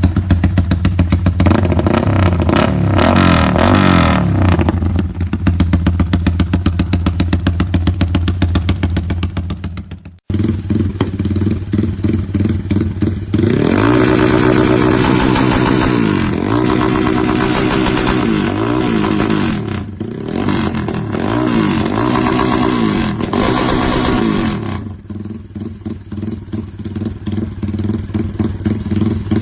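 Modified Yamaha Y15's single-cylinder four-stroke engine idling and being revved in short blips, with the clatter of its Comstar dry clutch. The sound cuts out abruptly about ten seconds in and comes back. A long run of repeated revs follows, settling back to idle near the end.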